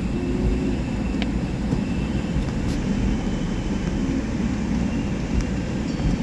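Steady low rumble of a car cabin on the move in heavy rain: engine, road and rain noise, with a few faint clicks.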